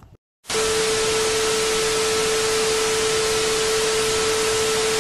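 Television static sound effect: a loud, steady hiss with a steady tone running through it, starting about half a second in.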